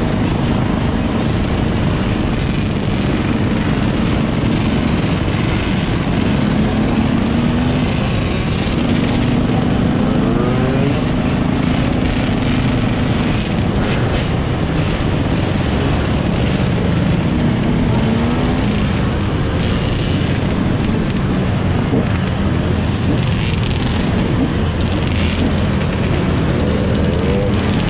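A pack of dirt bike engines running together at once, a continuous dense engine noise with individual bikes revving up now and then.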